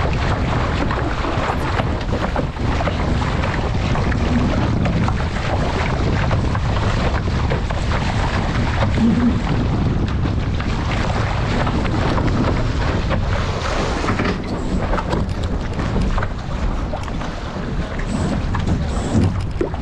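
Wind buffeting the microphone over water splashing and rushing along the hull of an RS600 sailing dinghy under way, a steady, loud noise.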